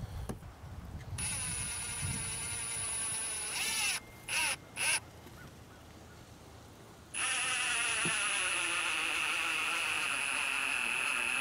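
Cordless impact driver driving screws into the wooden 2x4 rails of a hive stand. It runs for a few seconds and winds down, gives two short blips, then runs steadily through to the end.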